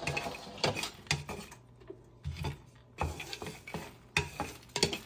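A wooden spatula stirs puffed lotus seeds (makhana) around a dry nonstick frying pan, making irregular scrapes and light knocks as the seeds are dry-roasted without ghee.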